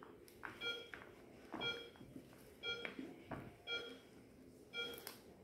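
A short electronic beep repeating steadily about once a second, with soft clicks and rustles of plastic between beeps.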